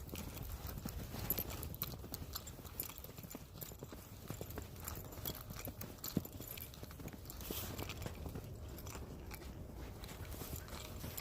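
Footsteps crunching through fresh, untrodden snow, a run of short irregular crunches over a low rumble.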